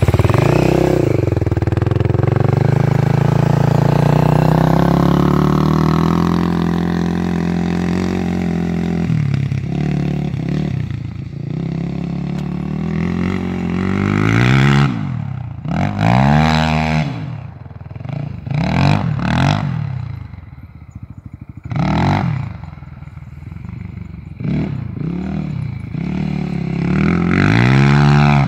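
Quad ATV engine being ridden hard. It runs fairly steadily for the first several seconds, then revs up and down in repeated surges every second or two as the throttle is worked around a dirt track.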